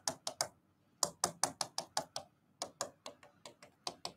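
A stylus tapping quickly on the glass of an interactive display board while short dashes are drawn, about five or six taps a second, with a brief pause about half a second in.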